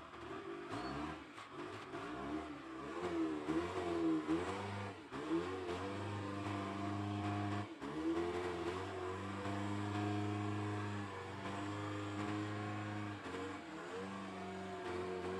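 Engine of a rough-terrain forklift fitted with a bucket, revving up and down over and over as it drives and maneuvers, then settling into a steadier run in the second half.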